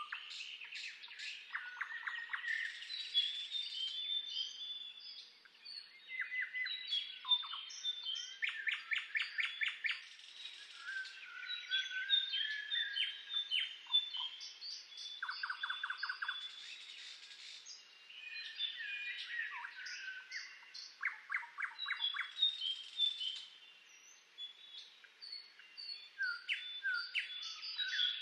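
Several birds singing at once: overlapping whistled chirps and notes with quick buzzy trills, in bursts separated by short lulls.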